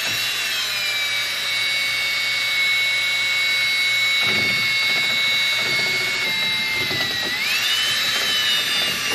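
Cordless drill spinning a paddle mixer through epoxy resin in a plastic bucket, mixing in pigment powder. The motor whine holds steady, then sags in pitch about seven seconds in and climbs back up.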